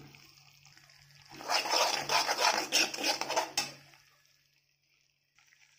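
A steel spoon scraping and stirring a thick masala paste as it fries in oil in a metal kadhai, a dense run of short scrapes lasting about two seconds in the middle.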